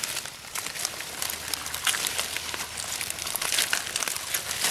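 Water hyacinth leaves and stems rustling and crackling as they are pulled up by hand out of wet mud, a dense run of small crackles and snaps.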